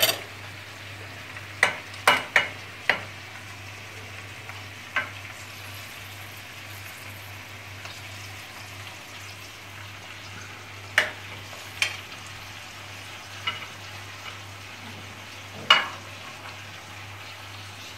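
Meat, onions and green peppers sizzling steadily in a saç pan of saç kavurma, with about ten sharp clinks of a utensil against a plate and the pan as chopped tomatoes are scraped in.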